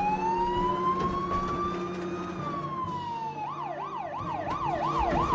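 Fire engine siren: one slow wail that rises and then falls, then switches about three seconds in to a fast warble of about three cycles a second, over a steady low hum.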